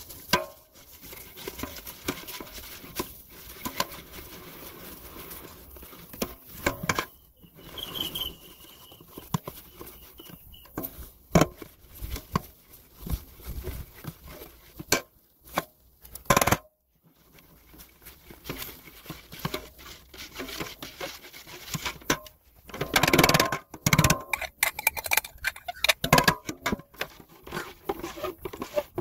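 Lye poured slowly into a citric acid solution in a stainless steel pot, crackling and fizzing as it reacts, with a spatula stirring and scraping against the pot and the glass jug. Sharp irregular clicks and crackles throughout, busiest near the end. The crackling and bubbling are the normal sign of lye meeting citric acid.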